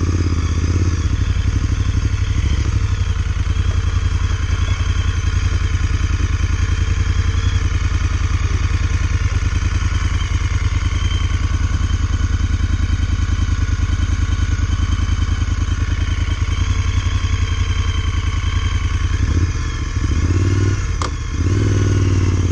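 Moto Guzzi Griso 1200 SE's 90-degree V-twin running under way, a steady low pulsing engine note, with two brief dips in the engine sound near the end.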